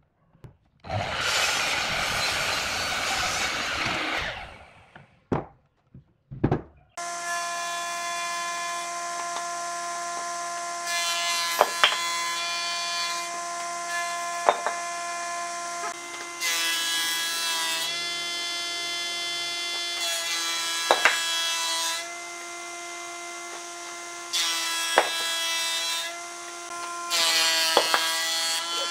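A Makita sliding miter saw cuts through a thick wooden block for about three seconds, followed by a few knocks. Then a combination woodworking machine's motor runs with a steady hum while its planer cutterhead shaves the block, getting louder and noisier in repeated stretches as the wood is fed through, with occasional sharp clicks.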